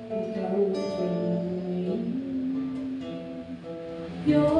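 Acoustic guitar playing chords to accompany a slow worship song, with the chord changing about two seconds in and again near the end.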